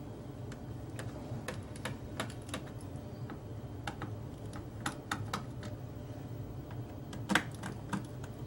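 Irregular small clicks and taps as a small screwdriver works the screws in a laptop's plastic bottom cover, with the loudest click about seven seconds in, over a steady low hum.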